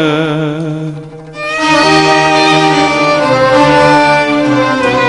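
Arabic music ensemble of violins, accordion and ouds playing an instrumental passage. A held, wavering note fades out about a second in, and the full ensemble comes back in with sustained notes shortly after.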